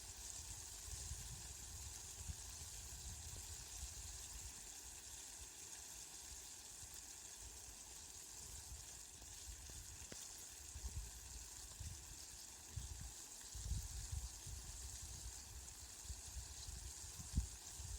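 Steady rain falling, an even hiss, with a low rumble swelling up now and then, most clearly in the last third.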